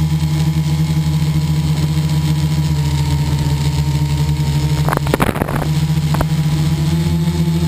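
Steady, unchanging drone of a model airplane's motor heard from a camera on board the plane, with a brief crackling rattle about five seconds in and a single click about a second later.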